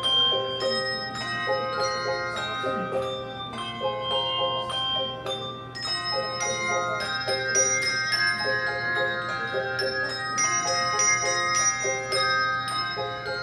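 Handbell choir playing a carol: many bells struck in quick succession, their notes ringing on and overlapping in chords.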